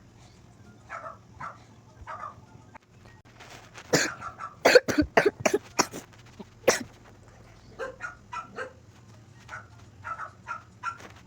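A dog making short yipping calls, with a rapid run of loud barks about four to seven seconds in.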